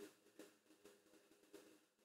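Near silence: room tone with a few faint small clicks.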